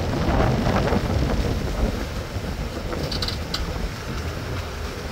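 Wind buffeting the microphone on the foredeck of a sailboat under way, a steady rumbling noise, with a brief high chirp about three seconds in.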